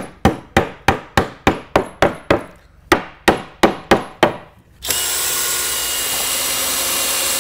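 A quick, even run of about fifteen hammer blows on lumber, roughly three a second. Then, about five seconds in, a DeWalt cordless drill/driver runs steadily for about three seconds, driving a self-drilling deck screw into the staging-horse frame.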